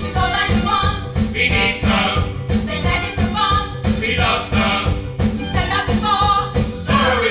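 Up-tempo musical theatre song: a band playing with a steady, regular beat, with singing voices over it.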